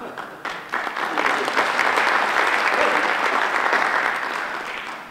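Conference audience applauding, building up over the first second, holding steady, then thinning out near the end.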